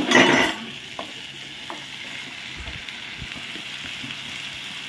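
Hot cooking oil sizzling steadily in a kadai, with a short louder burst of sizzle at the very start and a few faint clicks of a utensil.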